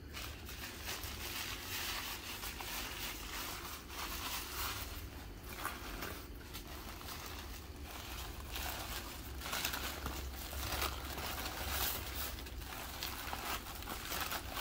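White packing paper crinkling and rustling as hands unwrap a stone packed in it, a steady run of small crackles.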